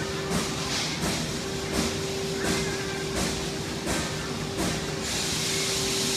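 Amada FBD-1253FS hydraulic press brake running: a steady hum from the hydraulic pump under a hissing noise that swells and fades about every 0.7 seconds and holds steady near the end.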